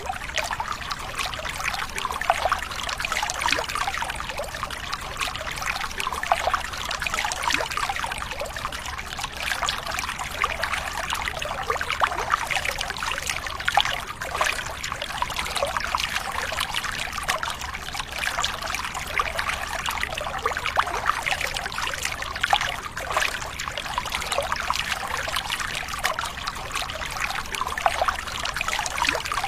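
Water trickling steadily, a continuous run of small splashes and gurgles with no pauses.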